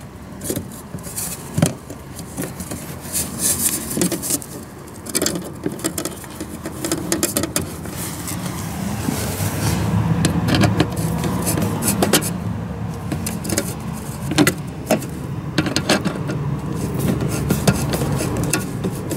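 Screwdriver turning the licence-plate mounting screws into a truck's rear bumper, with metal scraping and clicking as the plate is handled. From about halfway in, a steady low rumble runs underneath.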